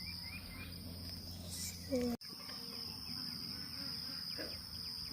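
Insects chirring steadily in a high, even drone, with a short call about two seconds in.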